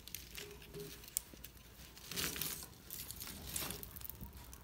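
Firewood crackling and popping in an open wood-burning hearth under a large pot, with sharp snaps scattered through and a louder rustling stretch about two seconds in.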